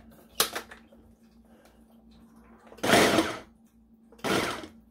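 Ninja blender pulsed twice: two short bursts of the motor and blades chopping cubed raw tri-tip into ground beef, the second about a second and a half after the first, with a light click from the pitcher lid shortly before.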